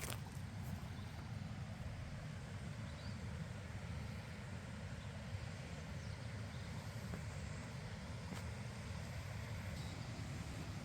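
Steady low outdoor rumble with a faint hiss above it, with a couple of sharp clicks right at the start.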